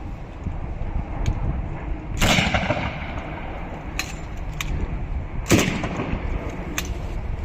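Machine gun firing blanks: two loud single shots about three seconds apart, with fainter clicks between. The gun is not running on automatic.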